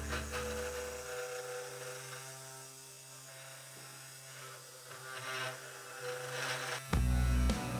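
3018 Pro Max desktop CNC router running a milling job: a steady motor hum with whining tones that step to new pitches as the axes move. A louder low hum drops away about a second in and comes back just before the end.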